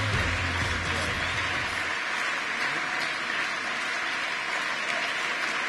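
A large audience applauding, while low music fades out in the first two seconds.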